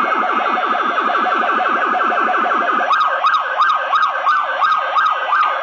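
Electronic sound effects from a toy robot's sound chip, played back slowed down: a fast run of falling zaps, about eight a second, then about halfway through a switch to a siren-like wail rising and falling about three times a second.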